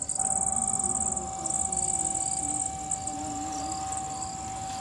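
Crickets trilling in a steady high pulsing chorus, with a faint single-pitched hum underneath.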